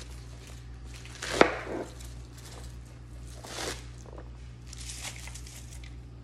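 Kitchen knife slicing through half a head of cabbage on a plastic cutting board, shredding it into thin strips: one sharp knock of the blade on the board about a second and a half in, then a few softer slicing strokes, over a low steady hum.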